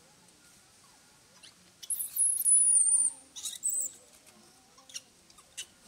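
Baby long-tailed macaque crying in distress at being refused the breast: thin, very high squealing calls that waver and fall in pitch, loudest for over a second about two seconds in, then one shorter squeal.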